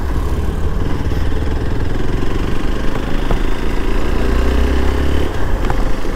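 A vehicle's engine running on the move, a steady low rumble that grows louder for about a second around four seconds in.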